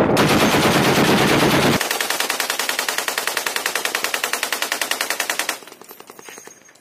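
Boat-mounted machine guns firing automatic bursts. The first couple of seconds are a dense stretch of fire, followed by a long string of rapid, evenly spaced shots that stops about five and a half seconds in, leaving a faint tail.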